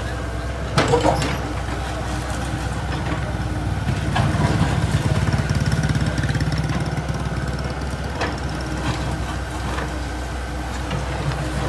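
Komatsu mini excavator's diesel engine running steadily as it knocks down brick walls, louder for a few seconds in the middle. Falling masonry crashes and clatters about a second in, with smaller knocks around four and eight seconds.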